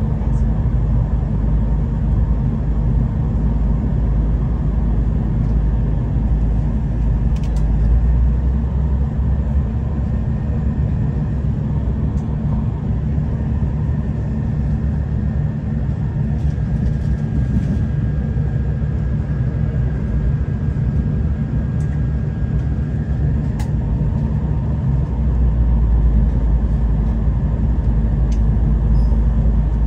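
Steady running noise of a moving V/Line diesel passenger train heard from inside the carriage: a continuous low rumble of wheels on the track and the train underway. A faint high whine sounds for several seconds midway.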